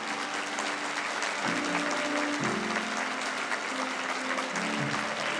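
Audience applauding, with held notes of music continuing underneath.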